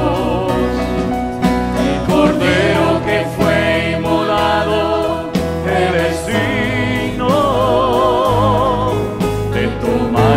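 Live worship music: a woman sings a slow Spanish worship song with marked vibrato over strummed acoustic guitar and a steady low bass line.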